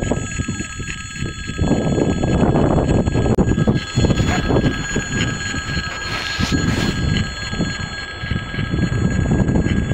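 Railway level-crossing warning bell ringing continuously as the crossing's red signal is lit, over a loud, uneven low rumble.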